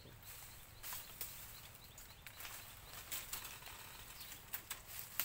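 Dry bamboo twigs and leaves rustling and crackling as a person pushes through a bamboo thicket: faint, irregular clicks and snaps.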